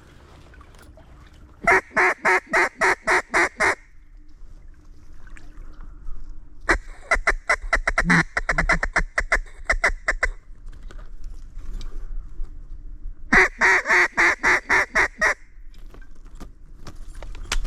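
Mallard duck call blown close by in three runs of loud quacks: about eight evenly spaced quacks, then a faster run of quick chatter, then about eight quacks again. It is calling to passing ducks to bring them into the decoys.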